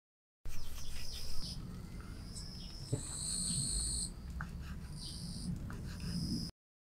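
Crickets chirping in steady high trills that come and go, with a few light clicks of a small knife cutting dough on a tiny wooden board. The sound starts suddenly about half a second in and cuts off just before the end.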